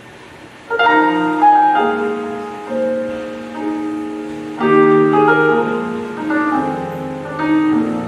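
Piano music starts about a second in: held chords, with a new one struck every one to three seconds.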